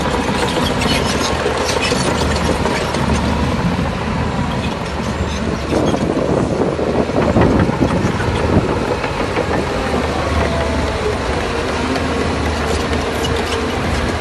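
Shantui DH17C3 crawler bulldozer working: its diesel engine runs steadily under a continuous metallic clanking of the steel tracks, louder about halfway through.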